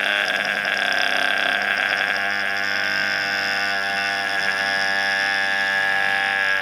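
A steady, held drone rich in overtones, sustained at an even level throughout.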